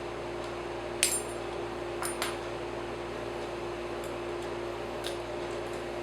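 Small metal deadbolt parts and a hand tool clinking as the lock is handled during disassembly: a sharp, ringing clink about a second in, two quicker ones around two seconds, and fainter ticks later, over a steady hum.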